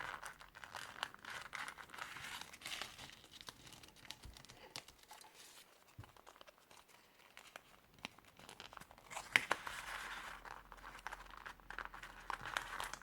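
Folded units of origami paper rustling and crinkling as they are handled and slotted together into a paper box, with small sharp crackles; quieter around the middle, with a louder cluster of crinkles about nine seconds in.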